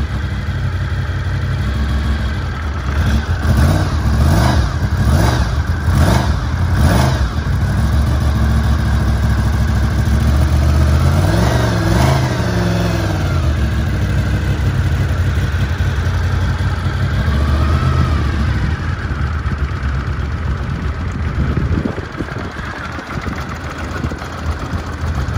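1989 Honda VFR750's V4 engine running through an aftermarket Motad exhaust, cold and just started on the manual choke. It holds a steady idle, with a string of short throttle blips a few seconds in and a longer rev that rises and falls about halfway through. It runs a little quieter near the end.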